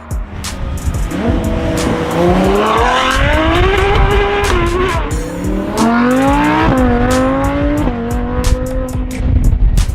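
A modified sports car engine accelerating hard, its revs climbing, dropping suddenly at gear shifts about five and seven seconds in, then holding, with a scatter of sharp cracks throughout.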